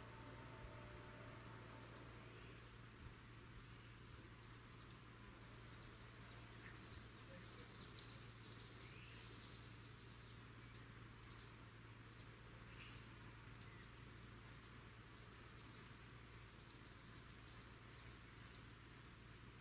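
Faint bird chirping: many short, high calls, densest between about six and ten seconds in, over a low steady hum.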